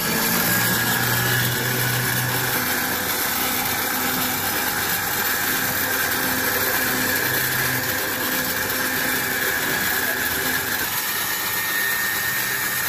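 Electric ice cream maker's motor running steadily on top of a wooden bucket packed with ice, turning the churn; a thin high whine in its sound drops out about eleven seconds in.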